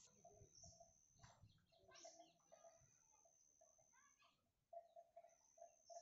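Faint bird calls: runs of short, low, cooing notes repeated quickly, up to about five a second in the second half.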